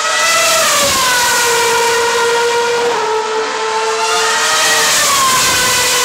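A 2013 Formula 1 car's 2.4-litre V8 at high revs, passing at speed on a straight. Its note falls as it goes by, steps down briefly about three seconds in, and drops again near the end, otherwise holding a high steady pitch.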